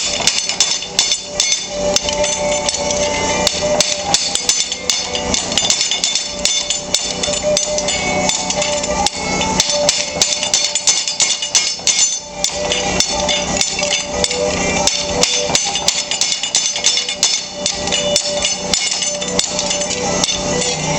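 Little Giant mechanical trip hammer running, its ram driving a spring swage press-brake die in a rapid, continuous run of metal-on-metal blows with ringing, bending a flat steel bar to a 90-degree angle.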